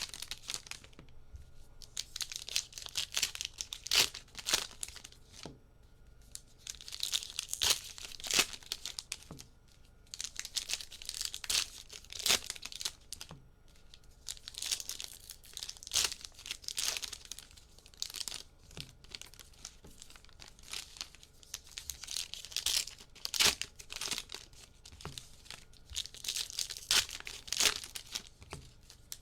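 Trading card pack wrappers being torn open and crinkled, in about six bouts of ripping and crackling a few seconds apart.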